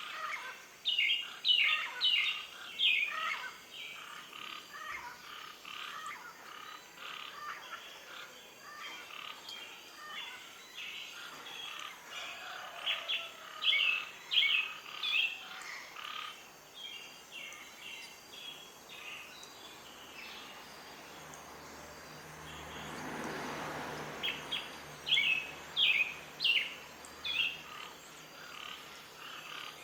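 Outdoor nature ambience of small birds chirping in quick bursts of short calls, coming in clusters several seconds apart. About two-thirds of the way through, a soft rushing swell of noise rises and fades.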